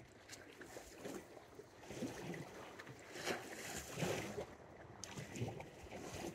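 Sea water lapping and sloshing against the shore in irregular surges, with some wind on the microphone.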